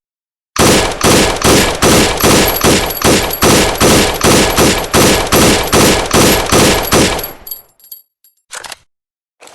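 M4 carbine (5.56 mm) firing a steady string of shots, about three a second, for some seven seconds. It stops with a fading echo, then one short, quieter sound near the end.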